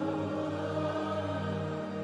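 Slow worship music with long held chords and voices singing.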